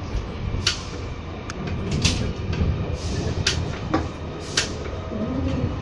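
Children's railway passenger carriage in motion, heard from inside: a steady low rumble of the running train, with irregular sharp clicks and knocks from the wheels and the carriage.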